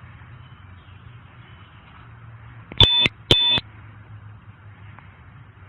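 Two short electronic beeps, about half a second apart, a little under three seconds in, over a low steady hum.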